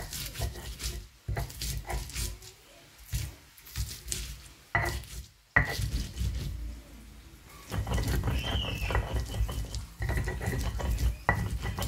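Stone pestle grinding and crushing red chillies and shallots on a flat stone mortar (cobek and ulekan): runs of gritty, wet scraping strokes broken by a few sharp stone-on-stone clacks.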